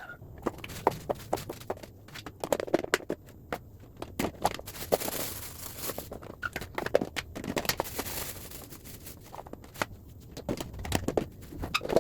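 Items being handled and moved about in a refrigerator: an irregular run of clicks and knocks of containers and packaging, with bursts of rustling.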